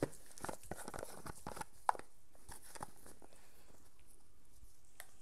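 Pepper mill grinding peppercorns, a dry, irregular crackle of small clicks for about three seconds with one sharper click near the middle, then fading out.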